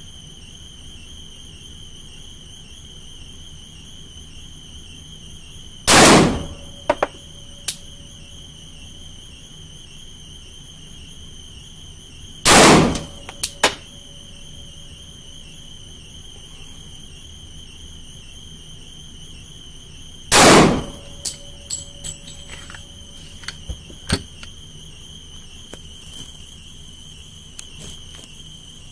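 Three shots from a Glock 30S .45 ACP pistol, spaced several seconds apart, each followed by a few faint clicks. A steady high-pitched tone runs underneath.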